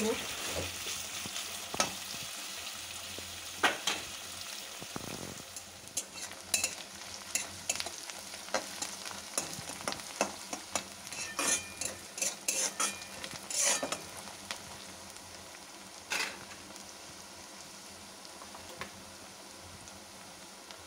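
Sliced onions sizzling in hot oil with whole spices in a kadai, being fried until reddish. Through the middle a spatula scrapes and stirs against the pan in many quick strokes, then the sizzling goes on steadily.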